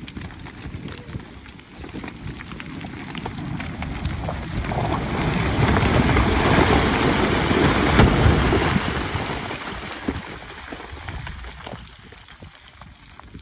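Rockfall: a large boulder pried off a rock slope tumbles down with loose stones and gravel, a rumbling clatter that builds over a few seconds, is loudest midway and then dies away.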